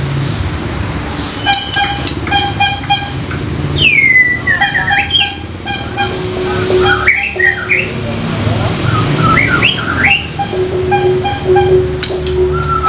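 White-rumped shama giving harsh 'koar' calls and sliding whistles: a falling whistle about four seconds in, then clusters of quick up-sweeping notes. Underneath runs a steady pattern of short, evenly repeating tones.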